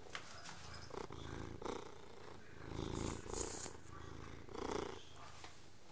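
Domestic cat purring close to the microphone, a steady low rumble rising in several louder swells. A brief sharp click about three and a half seconds in.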